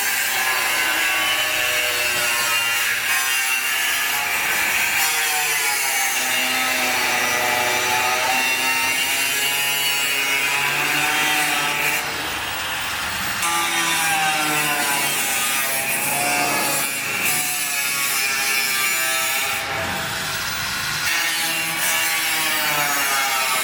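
Electric power saw cutting wood, its motor whine rising and falling in pitch as the blade takes the cut, with short easings about 12 and 20 seconds in.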